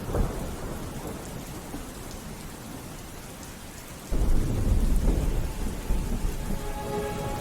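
Steady rain falling, with a loud roll of thunder that breaks in suddenly about four seconds in and rumbles on.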